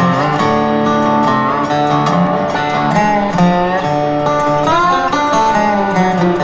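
Background music: plucked acoustic guitar with a steady beat and sliding notes, in a country or bluegrass style.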